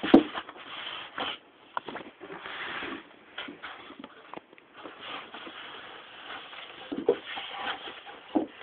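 Clear plastic sleeve holding a CD crinkling and rustling as it is handled, with a sharp knock just after the start and scattered smaller clicks.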